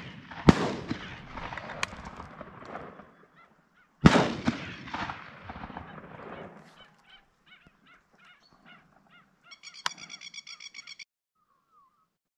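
Two shotgun shots about three and a half seconds apart, each trailing off in a long rolling echo, then a run of honking waterfowl calls that turns into a fast, evenly repeated series near the end.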